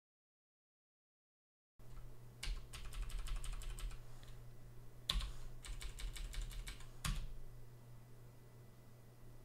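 Computer keyboard keystrokes over a low steady hum. The first couple of seconds are silent, then come a quick run of key clicks, a sharper single click about five seconds in, a second quick run, and one more firm click about seven seconds in.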